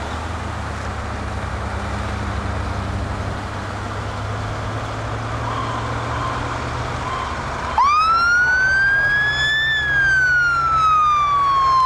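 Fire truck siren sounding one long wail about eight seconds in: a fast rise, a slower climb to its peak, then a slow fall in pitch. Under it is the low rumble of big truck engines driving past.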